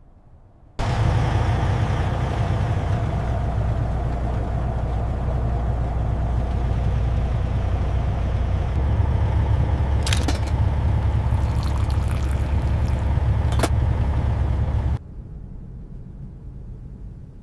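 A red Peterbilt truck's diesel engine running steadily as a loud, low rumble, starting and stopping abruptly, with two sharp clicks near the end.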